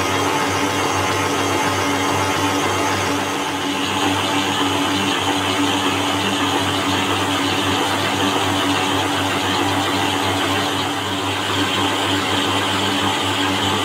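Electric mixer motor running steadily as it kneads a thick flour dough in a bowl, a constant motor hum.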